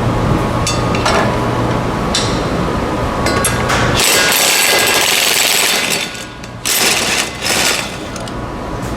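Impact wrench hammering on the driveshaft flange bolts, in short bursts: a few brief ones early, a long run of about two seconds about halfway through, then two quick bursts.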